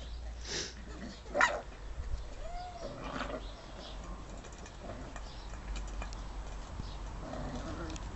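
Sealyham Terrier puppies yelping and whining as they play: a few short, separate calls, the sharpest a high yelp about a second and a half in.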